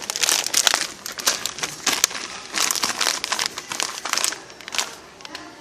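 Plastic cough-drop packaging crinkling as it is handled: clusters of irregular crackles that come and go and die away near the end.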